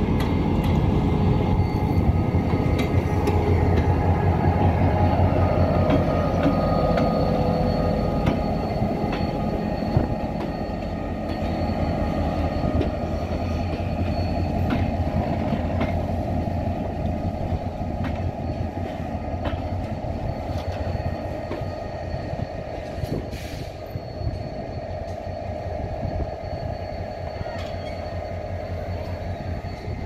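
A diesel locomotive passes close by with its engine running, its low rumble loudest over the first ten seconds and then easing. Passenger coaches follow, rolling past with scattered wheel clicks.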